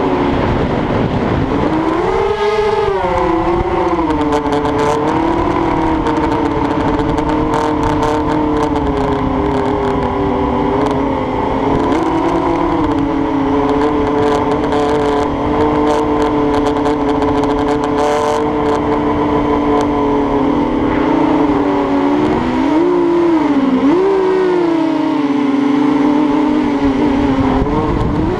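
Propeller motors of a small remote-controlled aircraft, heard from its onboard camera, droning steadily with the pitch dipping and rising as the throttle changes, twice sharply. Strong wind rushes over the microphone underneath.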